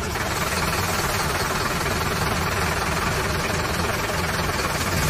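Engine sound effect of a cartoon vehicle running steadily at idle.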